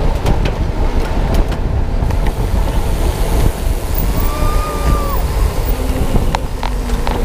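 Heavy wind noise on the microphone of a camera riding on a bicycle in a pack of cyclocross racers, with tyres rolling on pavement and a few sharp clicks.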